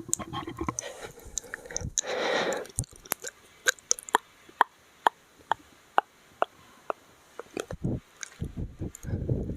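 Close-miked ASMR mouth sounds. A short breathy rush comes about two seconds in, then a run of sharp, wet mouth clicks at about two a second, and low muffled mouth noises near the end.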